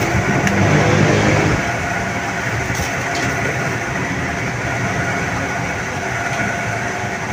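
Steady rumble and hiss of mechanical background noise, fuller and a little louder for the first second and a half, then even.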